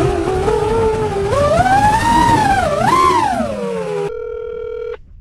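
FPV quadcopter's brushless motors and propellers whining, the pitch rising and falling with the throttle. About four seconds in this cuts off suddenly to about a second of a steady phone tone as a call is placed.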